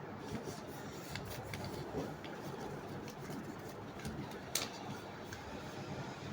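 Sheet of paper being handled and folded: soft rustling with scattered light crinkles and clicks, one sharper click about four and a half seconds in.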